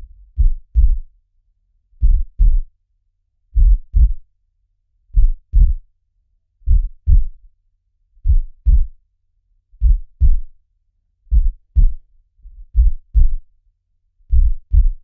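Human heartbeat, each beat a pair of low, muffled thumps (lub-dub), repeating steadily at about one beat every one and a half seconds.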